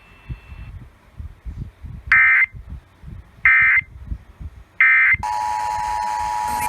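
Emergency Alert System alert tones: three short, loud bursts of buzzing SAME header data about 1.3 seconds apart, followed by the steady two-tone attention signal. This marks the start of a new alert. A low, uneven rumble runs underneath.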